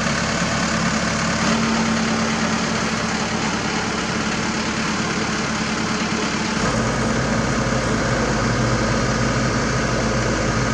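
Diesel engines of a Sany SY75C mini excavator and a Mitsubishi Fuso Canter self-loader truck idling steadily. About six and a half seconds in, the engine note shifts, with a fuller low hum.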